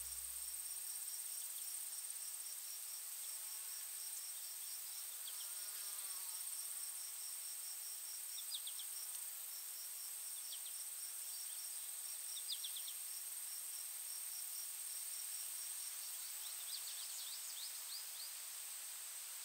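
Faint woodland insect chorus: a steady high drone with a rapid, even chirping of crickets, broken a few times by brief clusters of high chirps.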